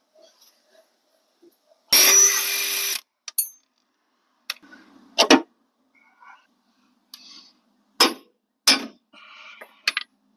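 A power tool runs in one burst of about a second, then several sharp metallic clinks and some scraping as suspension parts and tools are handled.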